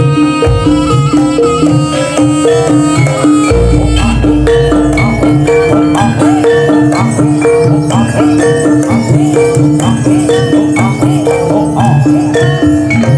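Loud traditional Javanese music accompanying a barongan dance, with a fast repeating two-note pitched figure over percussion. A deep low boom comes in about three and a half seconds in.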